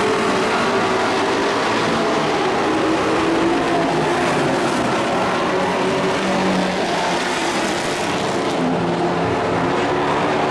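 Engines of dirt-track racing pickup trucks running at speed around the oval, a loud, steady engine drone.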